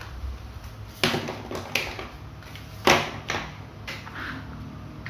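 Plastic toys being handled and set down on a tabletop: about five sharp knocks and taps, the loudest about three seconds in.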